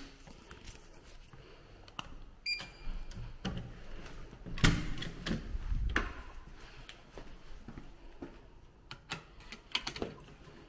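Electronic hotel-room door lock beeping briefly as a key card is read, then the lock's latch clicking and the door being pushed open with a thump. Near the end, a few clicks as the key card is slotted into the wall power-switch holder.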